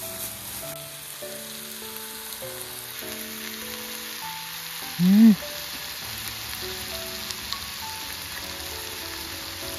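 Cubes of meat sizzling steadily in a cast-iron skillet, under soft background music. About five seconds in there is one short, loud vocal sound that rises and falls in pitch.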